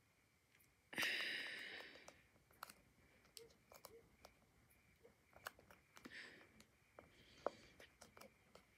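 Quiet handling of a small plastic squeeze bottle while squeezing colouring onto glue: scattered light clicks and taps, with a short hiss about a second in that fades away.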